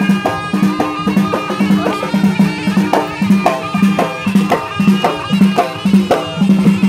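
Moroccan Alaoui folk music played live: large frame drums beat a steady rhythm about twice a second under a reedy wind instrument carrying the melody.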